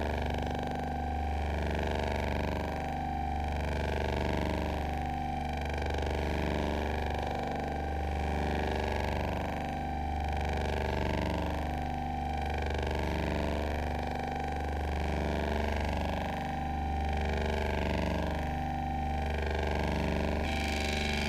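Qun mk2 synthesizer playing an electronic drone: a steady low hum under layered tones that keep shifting, swelling and easing about every two seconds.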